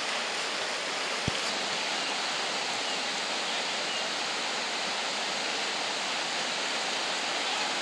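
Whitewater rapids of a small rocky river rushing steadily, with a single short knock about a second in.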